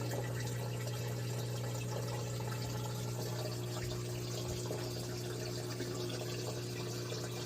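A newly replaced LG washer drain pump running steadily, with a constant hum under the sound of water flowing through it. The pump is pumping out normally.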